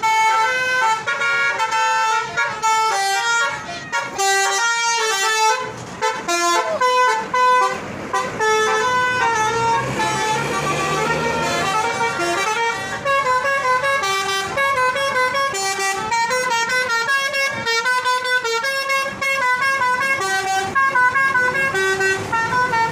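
Bus telolet horn, a multi-tone musical horn, playing a fast string of short notes that step up and down in a tune, sounding over and over with hardly a break. About ten seconds in a rushing noise swells under it for a few seconds.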